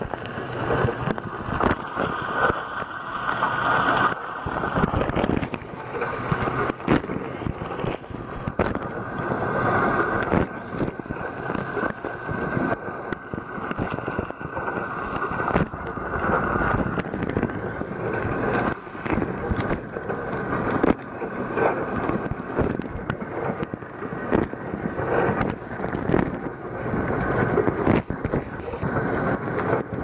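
A dishwasher's wash cycle heard from inside the tub through a waterproof camera: jets of water from the spray arms pelt the camera and the motherboard in a dense, uneven splashing.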